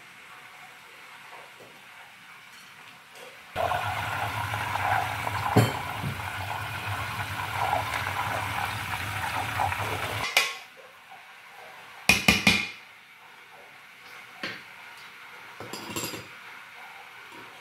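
A metal spoon and ladle clinking and scraping against a steel cooking pot. A louder, noisy stretch of handling starts and stops abruptly in the middle, and a quick run of sharp clinks comes about twelve seconds in.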